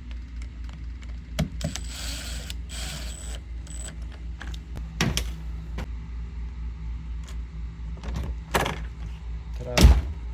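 Clicks and knocks of a Schlage keypad deadbolt being handled and put back together after a battery change, with a short whirring stretch about two seconds in and a loud knock near the end.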